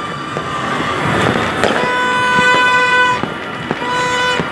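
A horn blowing a long steady toot of about a second and a half, then a shorter one near the end, over scattered firecracker and fireworks pops.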